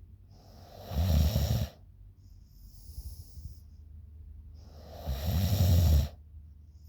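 A woman snoring in her sleep. There are two loud, rough, fluttering snores about four seconds apart, each about a second long, with a faint hissing breath between them.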